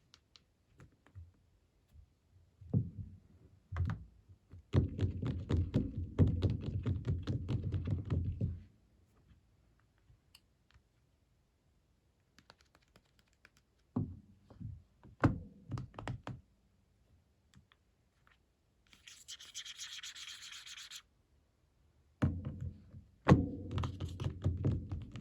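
Handling noise from smartphones being picked up, tapped and set down: scattered knocks and rubbing, with a dense run of rapid taps and scraping about five seconds in and a brief hiss about two-thirds of the way through.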